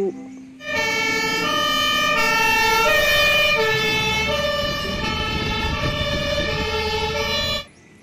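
German fire engine's two-tone siren, alternating steadily between a high and a low note over a low engine rumble. It starts about half a second in and cuts off abruptly just before the end.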